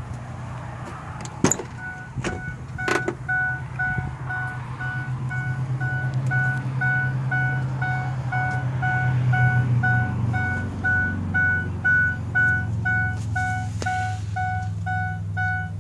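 Ford Super Duty truck's door-open, key-in-ignition warning chime beeping steadily, about two and a half beeps a second, over a low hum. It starts just after a few sharp clicks about a second and a half in.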